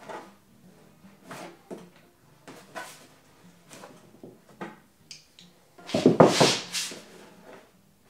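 Small metal wrench and pliers clicking and tapping on a bolt and fuel nipple fitted to a plastic fuel tank as the bolt is tightened. About six seconds in, a louder clatter as the tools are set down on the tank.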